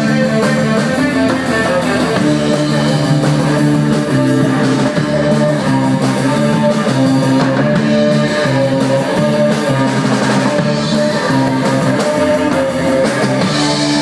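Live rock band playing loudly: guitar over drums.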